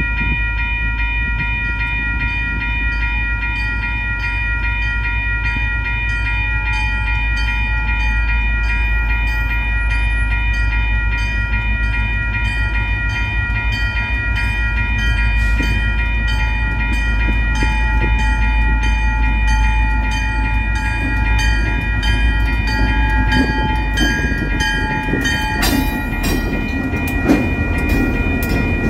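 A train: a steady deep rumble under several steady high ringing tones. About 26 seconds in, a run of sharp wheel clicks and clatter begins.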